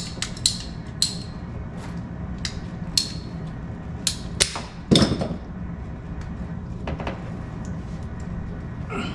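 Scattered sharp clicks and light knocks from handling electrical wire and small hand tools while capping wire ends, with one louder knock about five seconds in, over a steady low hum.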